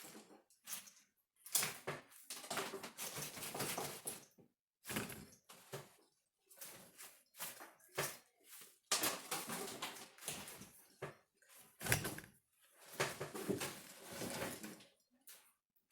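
Loose wires being pulled out of a car engine wiring harness, rustling and scraping against the bundle in irregular bursts with short pauses between them.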